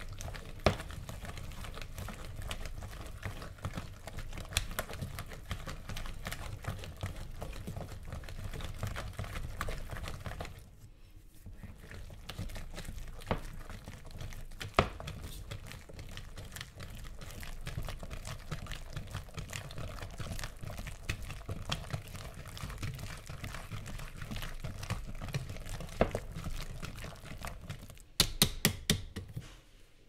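Thick batter being whisked by hand in a bowl: a fast, continuous scraping and clicking that pauses briefly about a third of the way in. Near the end there are a few sharp taps, then the whisking stops.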